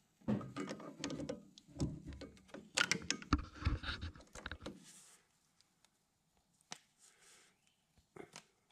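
Rustling, scraping and sharp metal clicks of a grease-gun coupler being worked onto a grease zerk on a baler, for about the first five seconds, then quiet with a couple of single clicks.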